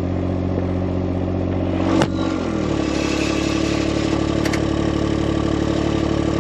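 Kubota utility vehicle's engine running steadily. About two seconds in there is a sharp click, after which the engine note shifts and settles into a new steady pitch.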